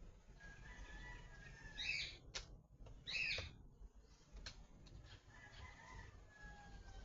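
Birds calling and chirping: thin whistled notes, with two louder calls about two and three seconds in, and a few sharp clicks.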